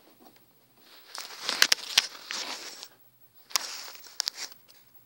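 A hand handling the recording device close to its microphone: rustling scrapes with several sharp clicks, the loudest between about one and a half and two seconds in, and another cluster of clicks near the four-second mark.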